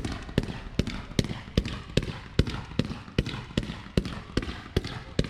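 Fireworks going off in a rapid, evenly spaced string of bangs, about two and a half a second, each with a short echoing tail.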